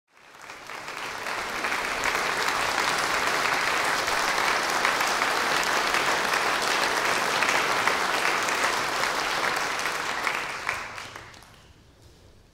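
Concert-hall audience applauding. The clapping swells in over the first two seconds, holds steady, and dies away about eleven seconds in.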